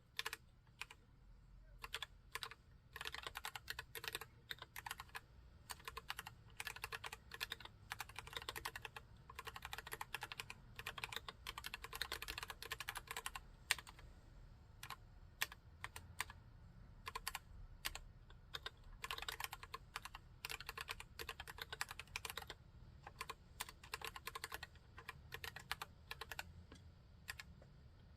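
Typing on a Cox CA108BT full-size mechanical keyboard with a full-aluminium case and Gateron Brown tactile switches. Fast runs of keystrokes come with short pauses, after a few scattered single keystrokes at the start.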